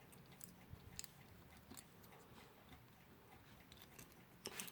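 Near silence with a few faint, sharp clicks and taps of small clock parts being handled, the loudest near the end.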